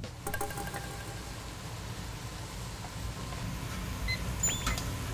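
Steady low rumble of a commercial kitchen, with a digital kitchen timer beeping shortly as its buttons are pressed near the end.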